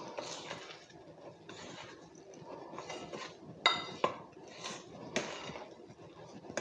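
A hand mixing flour into very soft cookie dough in a glass bowl: soft squishing and rubbing strokes, with a sharp clink on the glass bowl a little past the middle and a couple of lighter knocks after it.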